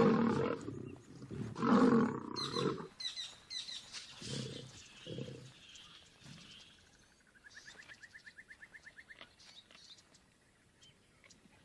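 Male lions snarling and roaring as they fight, with two loud bursts in the first three seconds and a few quieter growls after. Later comes a faint rapid chirping of about nine pulses a second, lasting a couple of seconds.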